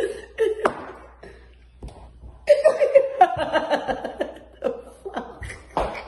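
A woman laughing hard in short, pulsing bursts, loudest about two and a half to four seconds in. She is laughing to the point of tears.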